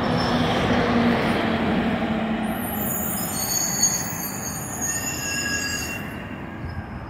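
City road traffic passing, a bus engine's hum fading out over the first couple of seconds, with a high-pitched squeal, like brakes, from about two and a half seconds in for about three seconds; the traffic noise dies down toward the end.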